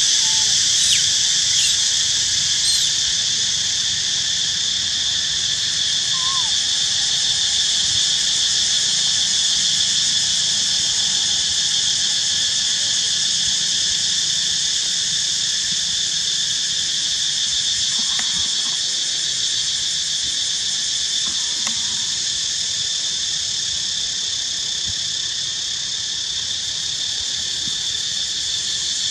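Steady, high-pitched insect chorus buzzing without a break, with a few faint short squeaks from young monkeys now and then.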